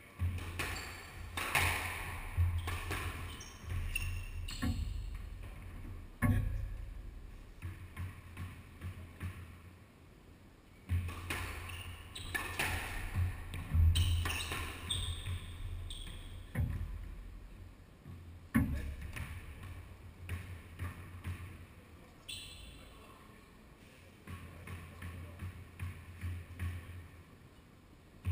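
Squash rally: the rubber ball cracks off the rackets, the walls and the wooden floor in sharp, irregular strikes, with court shoes squeaking on the floorboards between the shots.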